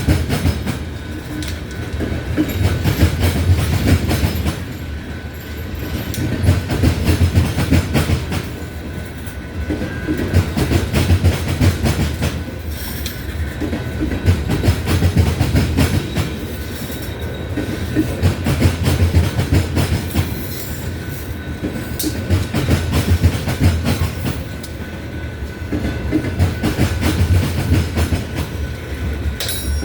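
Freight train of ethanol tank cars rolling past, the wheels clicking and clacking over the rails with a heavy rumble. The rumble swells and fades in a regular cycle every few seconds as the cars go by.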